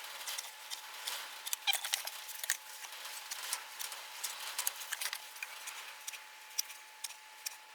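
Light scratching and many small clicks of a scriber and square worked along a wooden board to mark a line, with one slightly louder knock about two seconds in.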